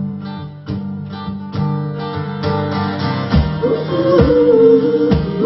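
Live acoustic guitar strummed in a steady rhythm, opening a folk-pop song. About three and a half seconds in, a sustained, gliding melody line comes in over the strumming, with low beats on the pulse.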